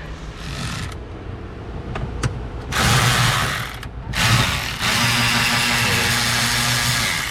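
Cordless electric ratchet whirring in three bursts, the last about two and a half seconds long, backing out two bolts, with a few light clicks of the socket before it.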